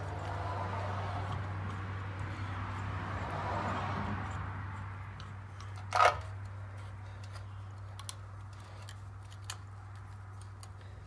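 Metal tools being handled at a truck's rear brake caliper as a piston compressor tool is set against the dual-piston caliper: a soft scraping rustle for the first few seconds, then one sharp metallic clink about six seconds in, over a steady low hum.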